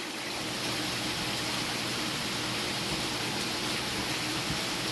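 Steady rushing of water circulating through a saltwater aquarium's pumps and filtration.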